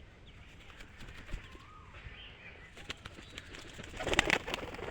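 A pigeon's wings flapping in a short burst about four seconds in, after faint bird chirps and small clicks.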